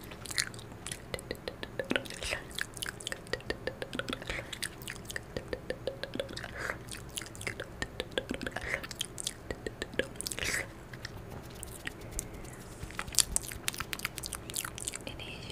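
Close-up ASMR mouth sounds: wet smacking and mock chewing and biting into the microphone, a quick, irregular run of clicks.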